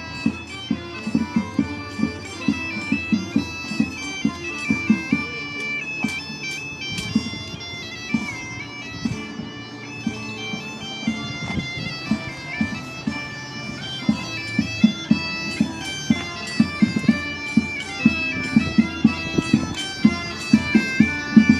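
Portuguese bagpipe (gaita de foles) playing a melody that moves in steps over its steady drone, with regular low thumps beating time.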